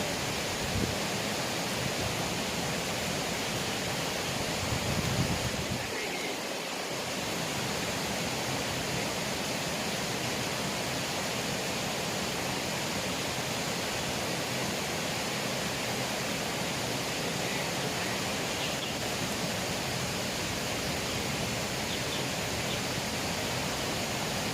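Steady rushing of flowing water from a small river, an even hiss with no change.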